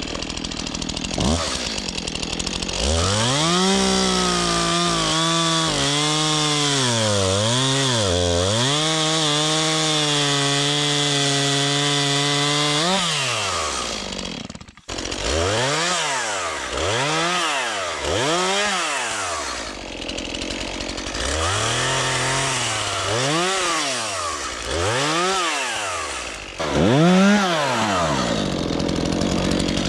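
Two-stroke chainsaw revving. About a second and a half in it is throttled up and held at high speed for about ten seconds, dipping a few times. After a sudden break about halfway, it is revved up and down over and over, roughly once every second and a half.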